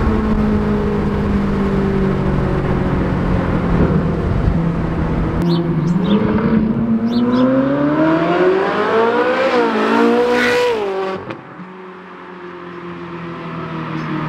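Ferrari 458 Italia's naturally aspirated V8 through an iPE exhaust, first heard from inside the cabin cruising with its pitch easing down over a low road rumble. Then it is heard from the roadside as the car accelerates hard, the engine note climbing steadily to a high wail before dropping away sharply about eleven seconds in.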